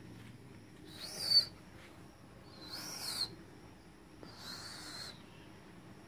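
A child whistling softly three times, breathy whistles that each rise and fall in pitch, the first the loudest.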